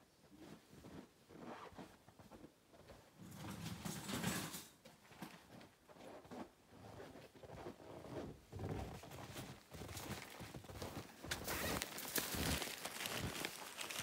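Irregular rustling, knocking and crunching of someone handling a bag of gear and moving about in snow, louder around the middle and again near the end.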